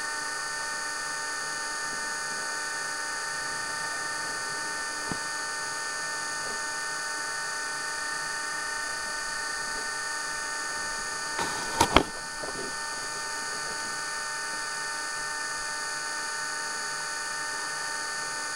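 A steady high whine made of several fixed tones, like a small motor running, with a few sharp knocks close together about twelve seconds in.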